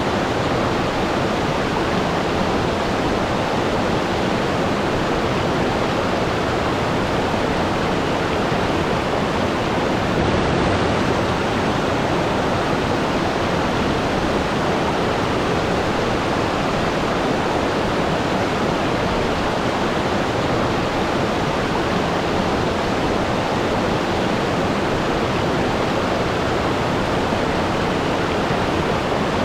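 Waterfall: water falling and splashing as a steady, even rush.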